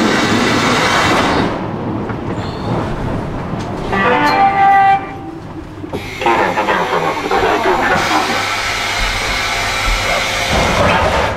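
Budapest M1 metro train: loud rail noise at the start, a pitched signal tone lasting about a second near the middle, then loud train running noise again to the end.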